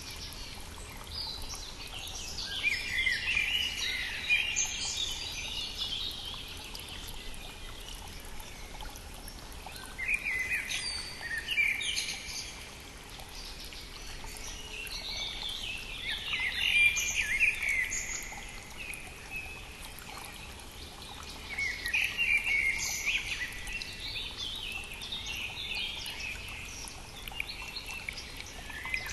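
Songbirds singing in the spring over the steady rush of a brook. Song phrases of a couple of seconds come back about every five or six seconds above the constant water noise.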